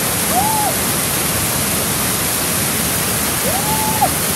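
Waterfall cascading over rocks, a steady, loud rush of water. Two short rising-and-falling vocal whoops come through it, about half a second in and again near the end.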